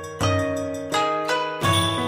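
Background music of plucked string notes over a low bass, a new note about every half second.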